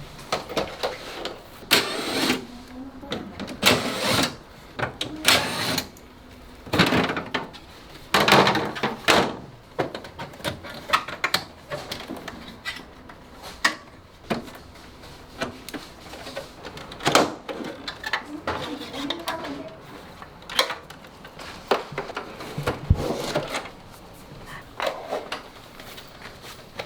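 Air conditioner casing being taken apart by hand: irregular clicks, knocks and clatter of plastic panels and parts being unclipped, lifted off and set down.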